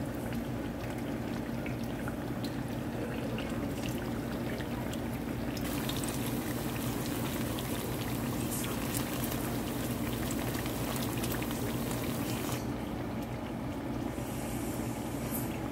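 Masa gorditas frying in hot oil in a pan: the oil sizzling and crackling. The sizzle grows louder about six seconds in, as fresh dough lies in the oil, and drops back about seven seconds later. A steady low hum runs underneath.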